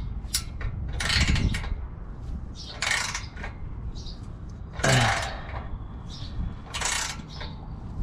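Socket ratchet wrench clicking in short, irregular bursts a second or two apart as a bolt is turned during an exhaust install.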